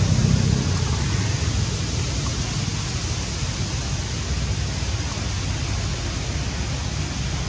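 Steady outdoor noise: an even hiss with a low rumble underneath and no distinct events, easing slightly about a second in.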